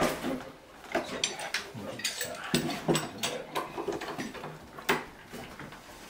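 Clamps being fitted and tightened to hold a steamed ash chair leg against a wooden bending form: irregular ratcheting clicks and knocks of metal on wood, the loudest knocks about a second in and near five seconds.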